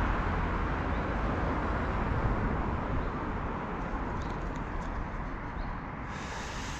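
Steady rushing background noise with a low rumble, growing slowly fainter.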